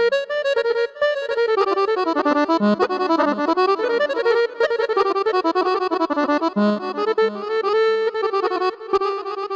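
Korg Pa arranger keyboard playing an accordion voice in fast, ornamented melodic runs, settling on a held note near the end.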